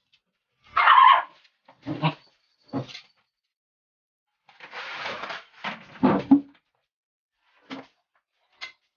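A dog barking and whining in several short, separate outbursts, loudest about a second in and again after the middle.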